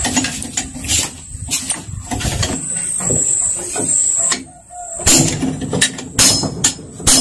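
Irregular clicks and knocks of metal tools and engine parts being handled during an outboard motor teardown, over a steady high hiss.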